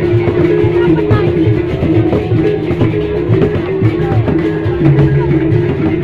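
Loud Sasak traditional procession music: a gendang beleq ensemble beating its large two-headed drums, with steady pitched notes held over the drumming.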